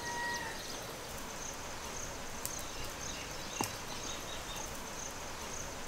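Outdoor ambience of insects chirping in a steady, faint, high-pitched pulsing, with a couple of faint clicks.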